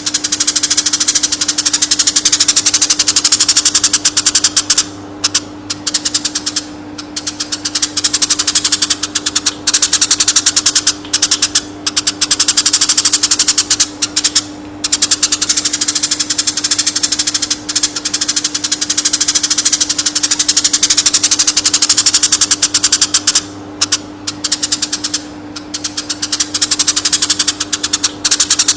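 Eurasian tree sparrows chirping in a fast, dense, nearly unbroken stream of high chirps, with a few short breaks. A steady low hum runs underneath.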